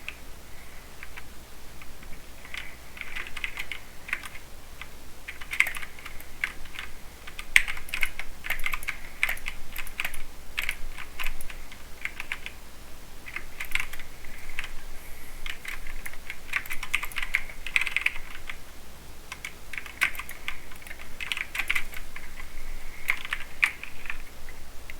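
Typing on a mechanical keyboard with Cherry MX Silver linear speed switches: quick runs of keystroke clicks in bursts, with short pauses between them.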